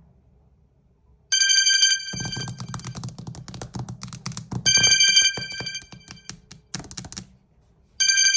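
Samsung Galaxy smartphone ringing: a bright electronic tone sounds about every three seconds, three times, with a rattling buzz of clicks between the tones.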